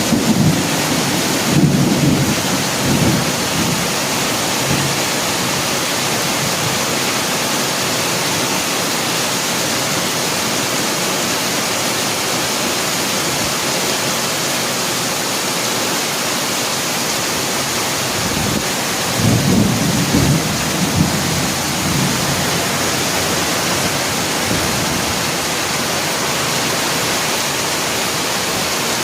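Heavy rain pouring steadily, with thunder rumbling near the start and again about two-thirds of the way through.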